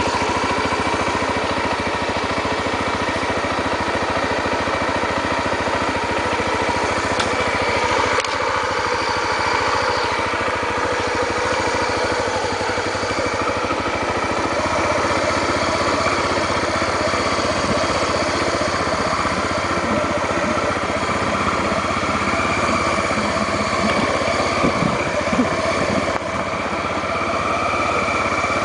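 Honda XR 250 Tornado motorcycle's single-cylinder four-stroke engine running steadily as the bike is ridden, its pitch shifting a little now and then.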